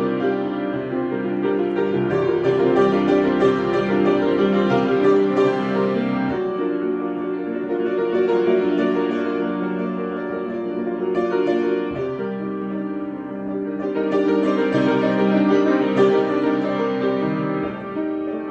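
Improvised instrumental music: sustained, overlapping notes and chords, without singing.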